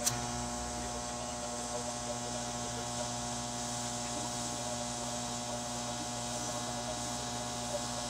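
Welding arc struck with a sharp click, then burning steadily as an even electrical hum with a hiss while a bead is run on steel.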